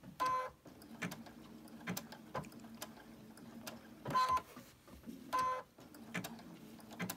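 Sewing machine stitching slowly in short runs with a quilting applique stitch: a low motor hum with needle clicks, broken by three short tones, one right at the start and two around four and five seconds in.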